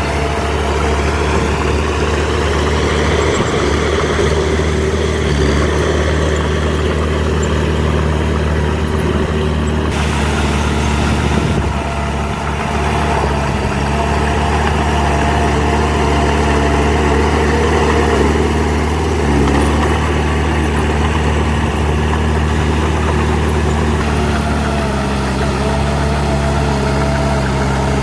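Heavy diesel engine of earth-moving machinery running steadily, its note shifting slightly a few times and stepping down a little near the end.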